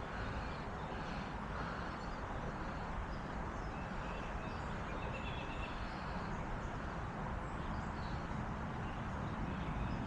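Steady outdoor background noise, a low even rush, with faint short bird chirps now and then.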